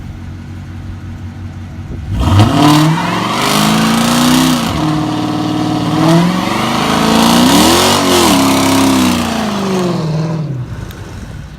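Car engine revved hard in first gear with traction control off, in an attempt at a burnout. It begins about two seconds in and climbs and falls in pitch several times over about eight seconds, then drops back near the end.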